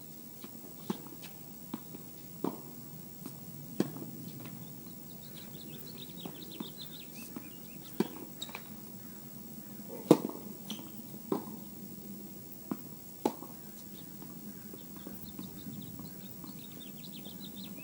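Tennis balls struck by rackets and bouncing on a court: a string of sharp pops roughly every second or so, the loudest about ten seconds in. Faint high chirps come and go in the background.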